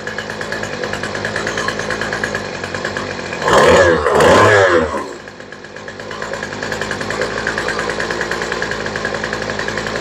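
Poulan Pro string trimmer's two-stroke engine idling while the low-speed mixture screw on its new carburetor is turned. About three and a half seconds in, it revs up for a second or so, then drops back and sags before settling into a steady idle again.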